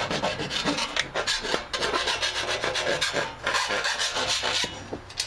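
Flat hand file rasping back and forth along the cut edge of a sheet-metal hood in rapid, repeated strokes, smoothing off a sharp edge.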